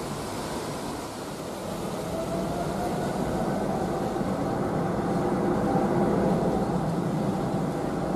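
Boeing 777-200ER's GE90 jet engines on the landing rollout: a steady jet rumble that grows louder from about a second in, with a faint whine rising slowly in pitch as reverse thrust spools up.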